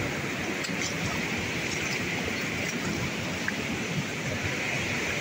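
Steady rush of a rocky mountain stream, an even hiss of flowing water.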